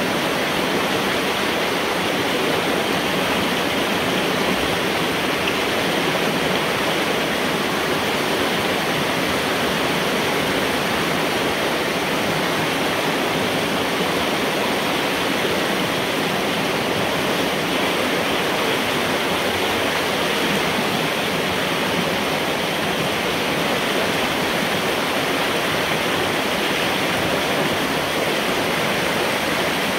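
Dammed-up floodwater rushing and splashing through a culvert pipe as it pours through a gap torn in a beaver dam blockage; a steady, unbroken rush.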